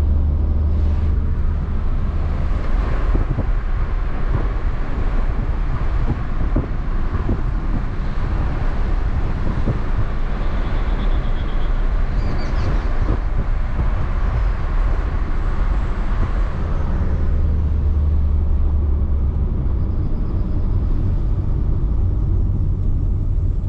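A car driving along a road: steady low engine and drivetrain rumble under a rushing tyre-and-road noise. The rushing is strong for most of the stretch, then eases about three-quarters of the way through, leaving mostly the low rumble.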